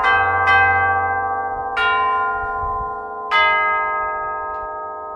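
A set of tubular bells in a church bell tower struck note by note in a hymn tune: four strikes, each ringing on over the one before, the last note sounding a little after three seconds in and fading slowly.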